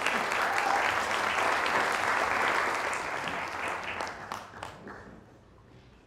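Audience applauding, dense at first and tapering off after about four seconds.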